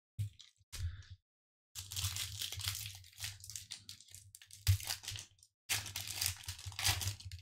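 Foil wrapper of a Pokémon Vivid Voltage booster pack crinkling and tearing as it is picked up and ripped open, in three spells of crackle with short pauses between.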